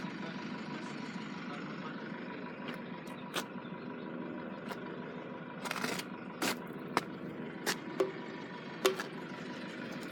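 Road vehicle engines running steadily, with several short sharp clicks scattered through the middle and later part.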